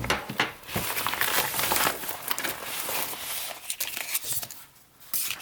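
Packaging crinkling and crackling as it is handled and opened by hand to get a small flashlight out. It quietens near the end, with one short rustle.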